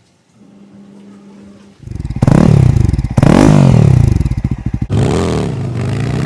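Jawa 42 motorcycle's single-cylinder engine is revved hard, starting about two seconds in after a faint steady hum, with three rises and falls in pitch. It runs loud through exhaust bend pipes with the catalytic converter removed. This is the engine noise the owner calls a major problem.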